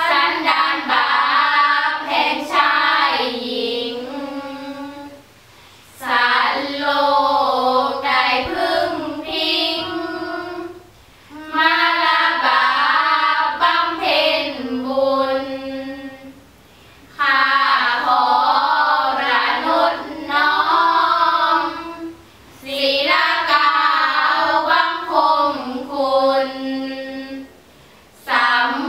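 Five girls chanting Thai Buddhist sarabhanya verse together in unison: a slow, melodic sung recitation in phrases of about five seconds, each ending in a short pause for breath.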